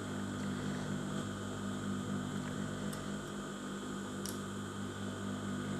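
Steady low electric hum with two faint ticks, one about three seconds in and one a little over four seconds in.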